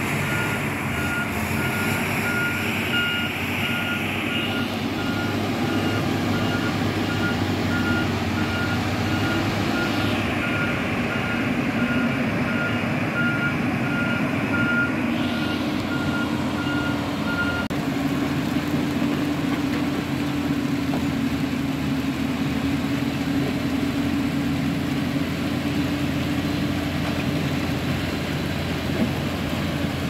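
Diesel engine of a backhoe loader running steadily while its reversing alarm beeps about twice a second. The beeping stops a little over halfway through, and the engine keeps running.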